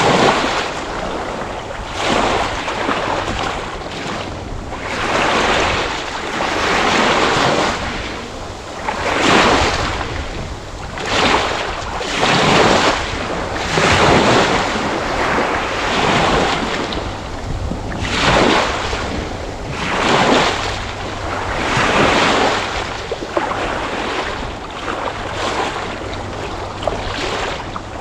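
Ocean waves breaking and washing on a shore, surging and ebbing every second or two.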